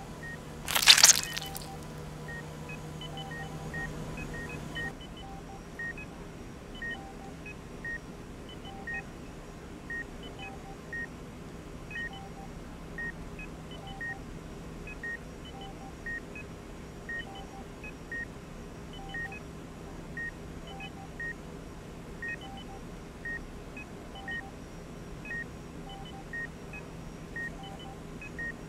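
Short high electronic beeps repeating evenly about once a second over a faint low hum, after a loud short burst of noise about a second in.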